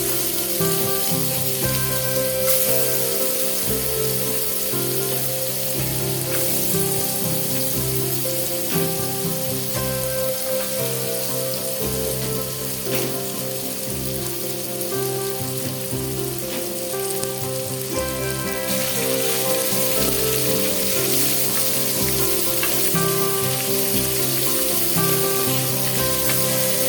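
Food frying in hot oil in a pan, a steady sizzle, with background music under it.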